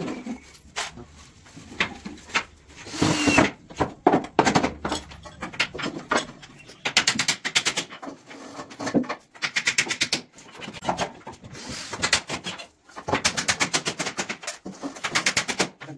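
Hand tool working wood: several rasping strokes about a second long, with irregular knocks and handling sounds before them.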